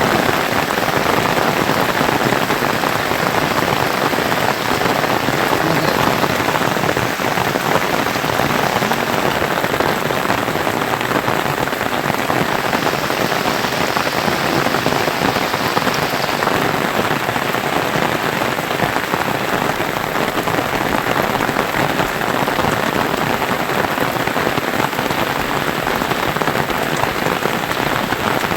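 Steady rain falling, a dense patter of countless drops at an even, fairly loud level.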